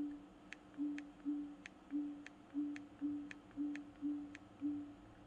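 Projector menu navigation sounds while scrolling down a settings list: a run of about nine short, low boop tones, each paired with a light click, roughly two a second, that stops shortly before the end.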